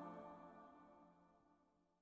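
The last held notes of background music fading out, dying away to silence about a second and a half in.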